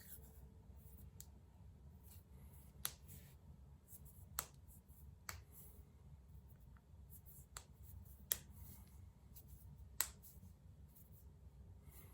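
A person cracking their own joints: about six sharp pops at irregular intervals a second or two apart, with fainter clicks between.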